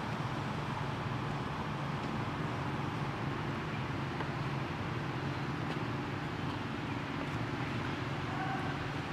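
Steady low mechanical hum over a constant noisy background, like a motor running, with a brief faint squeak near the end.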